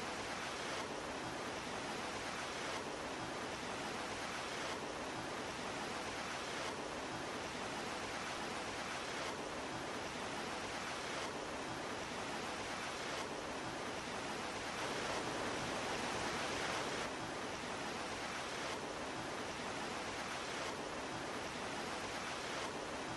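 Steady hiss-like noise with no speech or music, its tone shifting slightly about every two seconds and swelling a little just past the middle.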